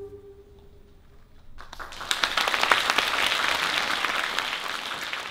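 The music's last held note fades out, and about a second and a half in an audience breaks into applause, dense clapping that carries on and eases off near the end.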